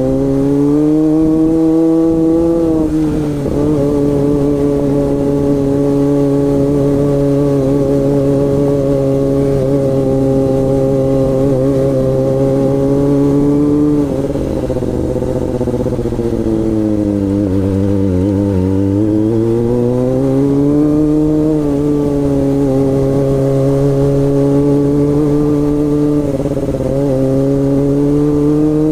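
Kawasaki ZX-25R's 249 cc inline-four engine running at a fairly steady speed. Its pitch sags about two-thirds of the way through and then climbs back.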